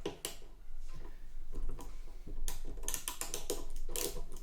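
Ratchet screwdriver clicking as a screw is backed out. There is a single click near the start, then a quick run of clicks, several a second, from about halfway in.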